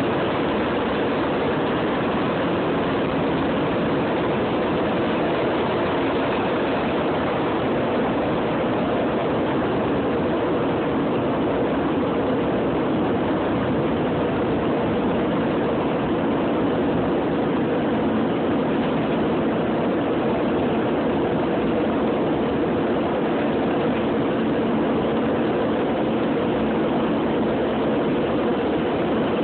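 KC-135R tanker's four CFM56 (F108) turbofans running at takeoff power, heard inside the rear boom pod together with the rush of air past the fuselage: a steady, even noise through lift-off and climb-out.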